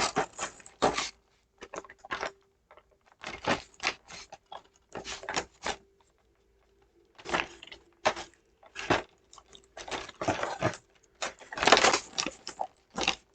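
Plastic model-kit parts and packaging being handled, giving irregular clicks, rattles and rustles in short clusters with pauses between them.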